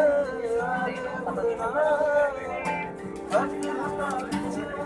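A man's voice singing to acoustic guitars.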